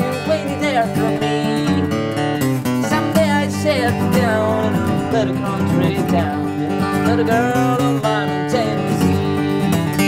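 Mahogany-top Taylor AD27e acoustic guitar strummed in a steady song accompaniment, with a man singing over it.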